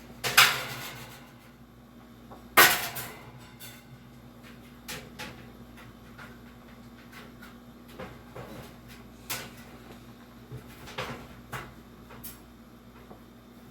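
Vintage Hunter box fan's back grill being worked loose and handled: two sharp clanks that ring on briefly, then scattered lighter clicks and knocks.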